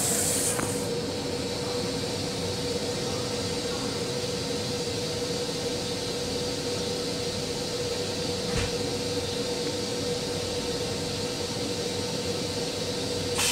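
An M7 commuter railcar's restroom toilet finishing its flush, its rinse hiss dying away within the first second. Then the steady hum of the railcar with one constant mid-pitched tone, and a faint click near the middle.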